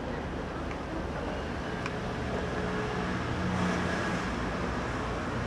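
City street traffic noise, swelling briefly as a vehicle passes a little over halfway through.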